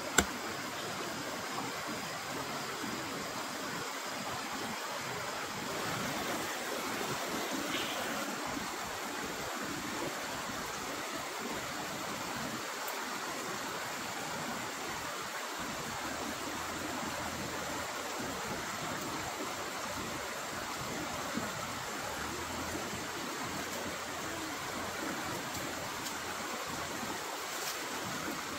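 Steady rushing noise like running water, unchanging throughout, with one sharp click at the very start.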